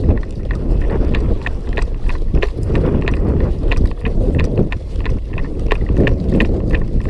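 Running footsteps on concrete, about two or three a second, over a heavy low rumble of wind and movement on the microphone.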